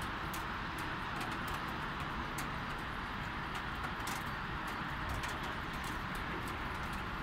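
Light rain: a steady hiss with irregular drops tapping close by, several a second, over a low rumble of distant traffic.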